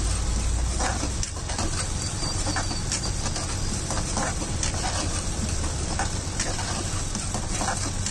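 Steel ladle scraping and clicking irregularly against a metal kadai as thick Manchurian gravy is stirred, over a steady background noise with a low hum.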